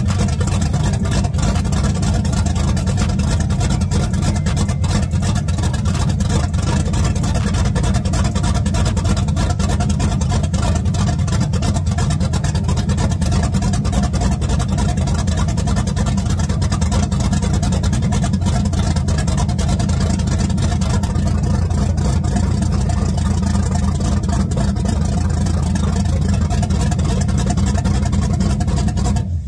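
Blueprint 383 stroker small-block Chevy V8 crate engine running steadily on its first start after installation, an even, unchanging run with no revving up or down.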